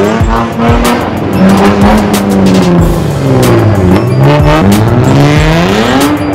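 A sports car's engine revving as it pulls away. Its pitch climbs, holds, drops low about four seconds in, then climbs again near the end.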